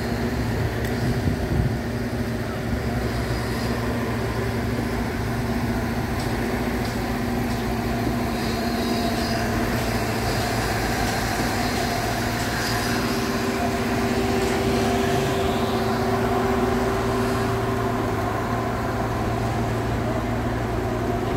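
Heavy engines of concrete-pumping machinery and transit mixers running steadily during a concrete pour, a continuous hum in which one tone grows stronger around the middle.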